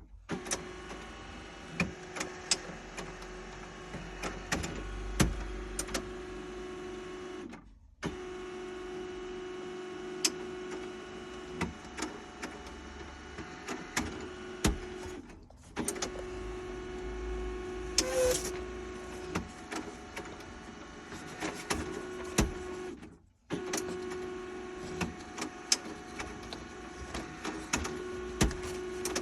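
HP Color LaserJet CP1515n laser printer going through its print cycle: a steady motor hum with a held tone and many irregular clicks and clacks. It stops briefly about every eight seconds and starts again. The printer makes these noises but does not print, and its top rollers are not turning.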